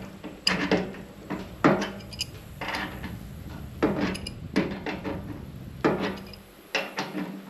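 An adjustable wrench clinking against a metal fitting on a fuel cell's sump plate as the fitting is tightened in short strokes. Sharp metallic clinks come at an uneven pace, roughly one a second, some ringing briefly.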